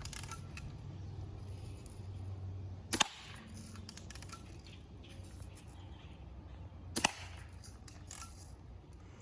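BB gun firing two sharp shots about four seconds apart during rapid speed shooting, with fainter clicks in between.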